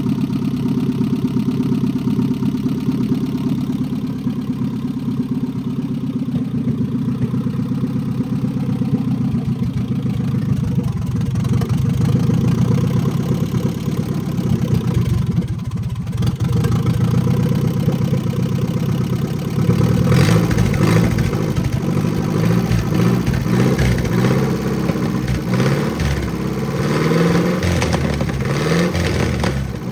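Freshly rebuilt 1989 Nissan 240SX 2.4-litre four-cylinder (KA24E) running at a steady idle. From about twenty seconds in it is blipped in a series of quick revs, the pitch rising and falling each time, to test that the EGR diaphragm moves.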